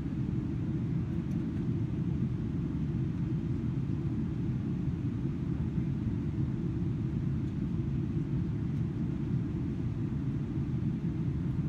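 Steady low rumble inside the cabin of a Boeing 777-300ER, from its engines and the airflow over the airframe, even throughout.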